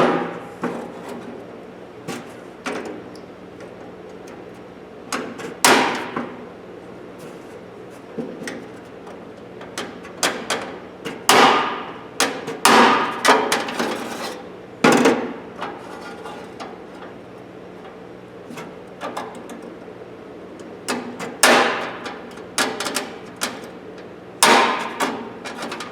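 A hammer tapping on the sheet-steel parts of an old Craftsman toolbox to knock pieces loose: irregular sharp metallic strikes in several bunches, each ringing briefly. A faint steady hum runs underneath.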